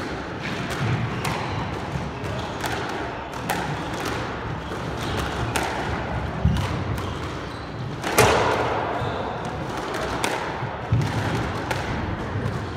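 A squash rally: sharp smacks of the ball off rackets and the court walls, echoing in the court, the loudest about 8 seconds in, with dull thuds of players' footsteps on the wooden floor.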